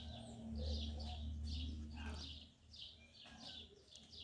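A small bird chirping over and over in short, quick notes, about three a second. A low steady hum underneath stops a little after two seconds in.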